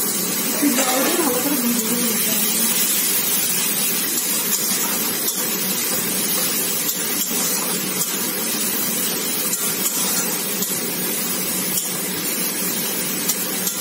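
Chopped onions with turmeric and spice pastes sizzling in hot oil in a kadai, a steady hiss, with the light scrape and tap of a spatula stirring.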